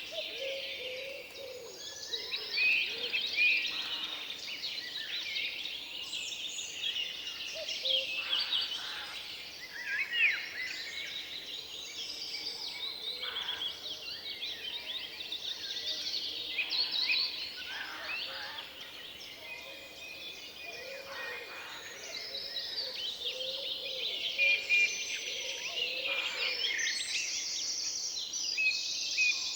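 Forest dawn chorus: many songbirds singing and chirping at once in dense, overlapping phrases, with no break.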